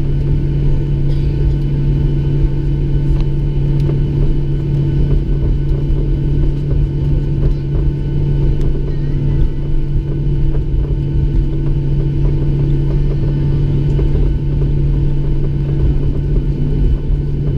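Cabin noise of a Boeing 737-700 taxiing: its CFM56-7B engines running at taxi thrust give a loud, steady low hum and rumble, with a few faint steady whining tones above it.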